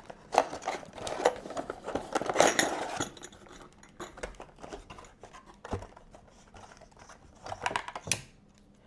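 A boxed door knob set being handled and unpacked: packaging rustling for the first few seconds, then scattered light clicks and knocks of the metal knob parts, with another brief rustle near the end.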